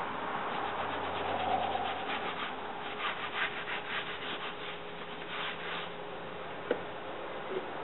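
Hands rubbing, smoothing and folding IronMind bending pads (IMPs) around a steel bar on a wooden workbench, with a run of quick brushing strokes in the middle. A single sharp tap comes near the end.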